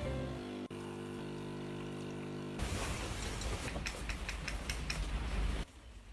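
Held musical tones, then about three seconds of a mechanical rattling with sharp clicks that stops suddenly.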